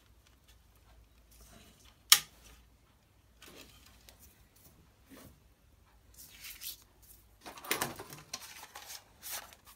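Mean Well MDR-60-24 DIN-rail power supply snapping onto a steel DIN rail: one sharp click about two seconds in. Quieter rustling and scraping of hands and parts follow in the last few seconds.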